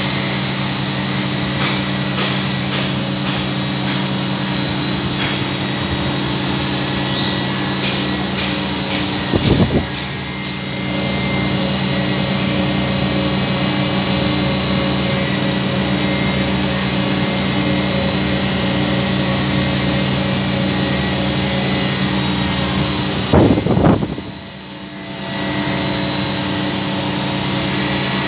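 CNC vertical machining centre running with a steady hum of several constant tones and a high whine. A whine rises in pitch about seven seconds in. Two sharp knocks come about nine and twenty-three seconds in, each followed by the sound going briefly quieter.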